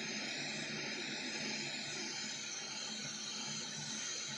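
Hot air rework gun blowing steadily: a continuous airy hiss with a faint low hum, as it heats the iPod's battery through the case.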